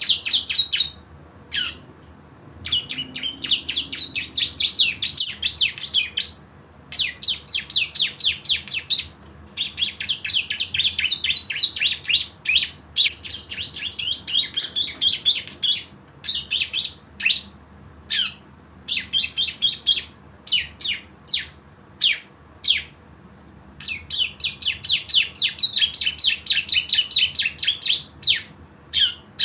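Bar-winged prinia (ciblek) singing in long, rapid trills of high notes, each run lasting a few seconds, with short gaps. Between runs in the middle come single sharp notes. This fast machine-gun trill is the 'ngebren' song that bird keepers prize.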